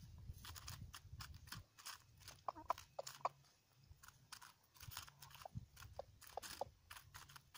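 Young roosters pecking at and tearing a head of lettuce: many quick, sharp pecks and crunches, with a few soft clucks about two and a half to three seconds in.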